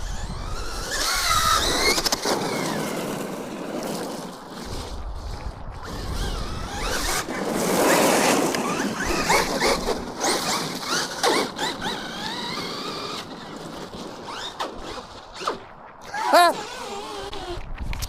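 Electric motor of an Arrma RC car whining as it revs up and down repeatedly while its tyres churn through mud and water. There is one sharp rev about sixteen seconds in.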